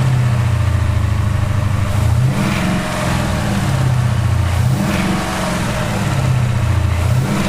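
2018 Ford Mustang GT's 5.0 V8 revved up and let back down three times in a row. It is being revved to bring out the rattle known as the Mustang's typewriter noise.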